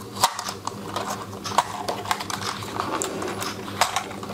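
Irregular plastic clicks and taps as a DJI Mini 2 drone is handled and its folding arms are swung open, over a faint steady low hum.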